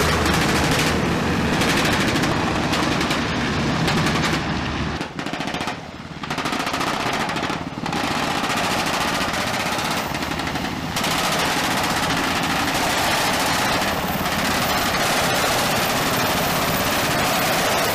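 Sikorsky UH-60 Black Hawk helicopters flying low past, the four-blade main rotor beating rapidly over the twin turbine engines. The sound dips briefly and changes character about five seconds in, and again shifts at about eleven seconds.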